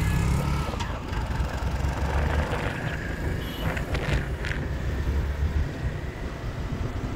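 Traffic noise heard while riding a motorcycle along a busy road: a steady low engine-and-road rumble, with a few brief sharp sounds between about three and four and a half seconds in.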